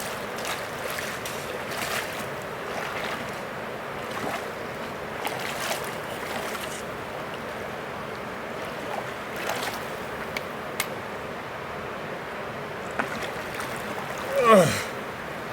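Steady rush of flowing river water, with scattered footsteps and clicks on rock. Near the end a short person's vocal sound falls steeply in pitch.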